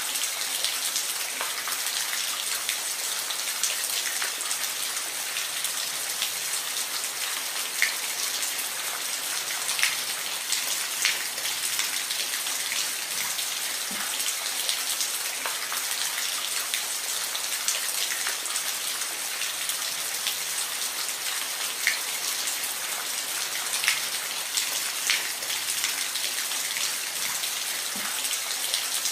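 Steady rain falling, an even hiss with single drops striking close by every second or two.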